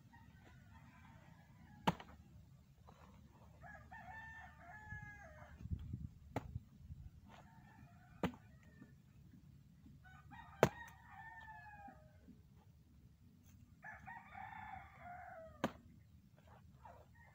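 Roosters crowing again and again, about five crows of a second or two each, with four sharp knocks of a bolo knife striking a bamboo stalk, the loudest about ten seconds in.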